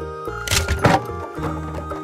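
Background music with held tones, with two short thuds about half a second and about a second in.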